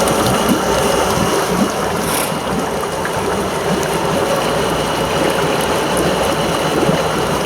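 Yamaha F350 V8 four-stroke outboard running steadily, with an even rush of water splashing.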